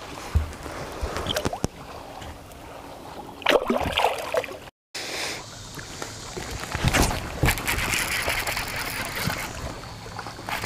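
Water splashing and trickling as a small smallmouth bass is let go back into the lake, with a few sharp knocks. The sound cuts out abruptly about halfway through, followed by more knocks and handling noise.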